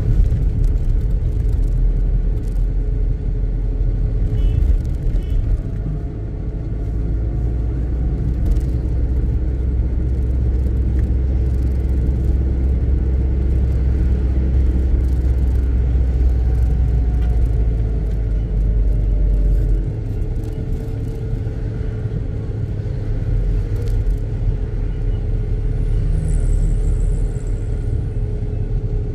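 A car driving through city traffic: a steady low rumble of engine and road noise, with a faint steady hum above it. The deepest part of the rumble eases about two-thirds of the way through.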